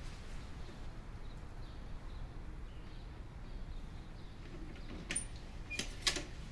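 Low steady room hum, then near the end a few sharp clicks of a door's lever handle and latch being worked, the last click the loudest.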